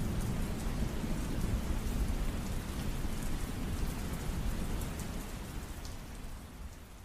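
Rain falling, with scattered drops ticking and a low rumble of thunder underneath, fading out gradually over the last couple of seconds.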